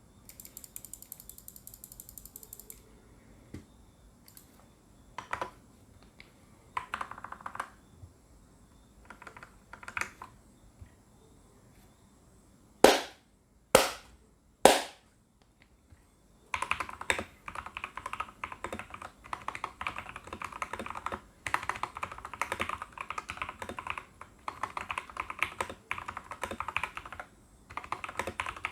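Mechanical keyboard with lubed Outemu Orange switches, a foam-modded case and PBT keycaps being typed on. Scattered single keystrokes at first, then three loud separate clacks about halfway through. Fast continuous typing follows for the rest.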